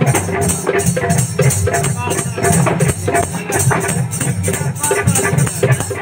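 Bastar folk naat music: drums and shaken rattles playing a fast, steady beat between sung verses.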